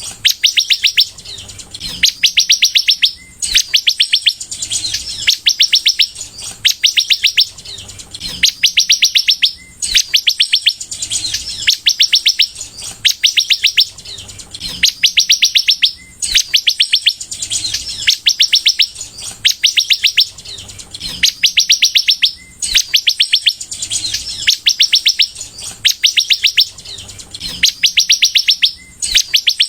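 Sunbird in full song: phrases of rapid, high, fast-repeated notes, each lasting about a second, repeated every second and a half or so with brief gaps.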